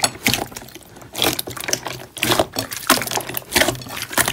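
Clear slime with blue beads worked in by hand, squeezed and kneaded: irregular wet squelches and sticky pops, a few a second.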